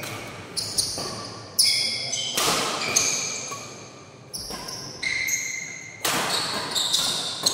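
Badminton rally: rackets hitting the shuttlecock about once a second. Each hit is sharp and rings on in the large hall.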